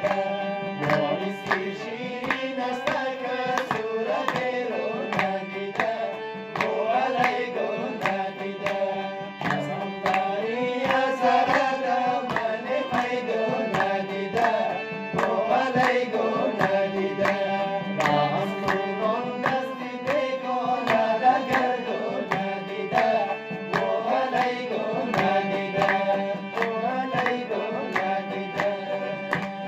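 A man singing a song into a microphone over a steady drum rhythm and melodic instrumental accompaniment.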